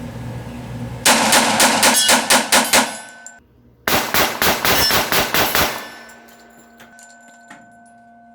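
Glock 21 .45 ACP pistol fired rapidly in two quick strings of shots, with a brief pause of about half a second between them.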